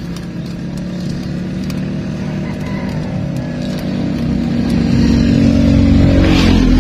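A motor vehicle's engine running steadily, getting louder over the last couple of seconds, with a brief rushing sound near the end.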